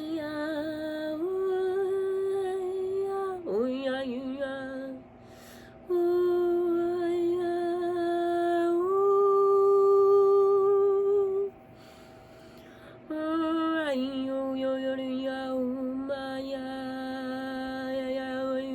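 A woman's voice toning long, held wordless notes for sound healing, each lasting a few seconds and sliding up or down into the next pitch. There are short pauses about five seconds in and about twelve seconds in.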